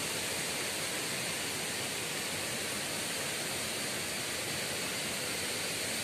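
Steady rush of a small waterfall: thin streams of water pouring down a wall and splashing into the pool below.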